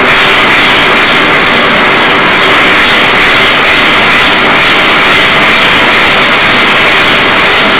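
Gas torch burner running flat out, a steady loud rushing flame heating the boiler pot of a Hero's steam engine.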